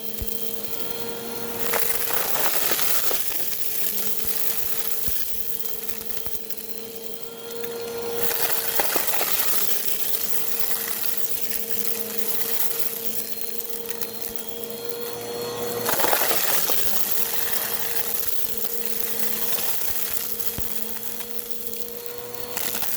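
Bissell vacuum cleaner running close up: a steady motor hum under a rushing airflow noise that swells and eases several times, about every six to eight seconds.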